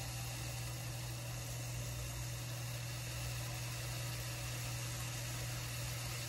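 A steady low hum under an even hiss, unchanging throughout, with no distinct knocks or clicks.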